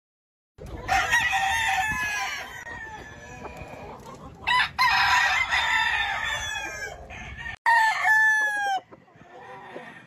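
Roosters crowing, three crows in turn: a long one starting about a second in, another around the middle, and a shorter one near the end, each falling in pitch at its close.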